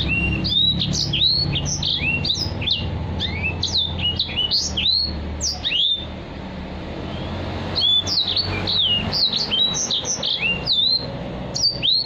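Caged edel sanger (white-rumped seedeater) singing fast phrases of high, sweeping whistled notes, breaking off for about two seconds midway before starting again. A low steady hum runs underneath during the first half.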